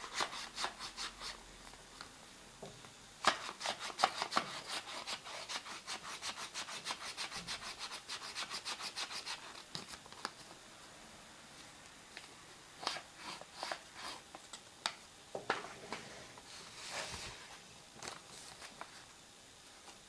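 White paper origami flapping bird being worked so its wings flap, each flap a quick papery rustle, about five a second: a short run at the start and a longer one of about six seconds. Later, a few separate rustles of paper being handled.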